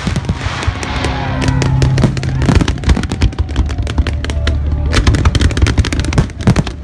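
A fireworks display going off: many sharp bangs and crackles in quick succession, growing denser partway through, with music playing underneath.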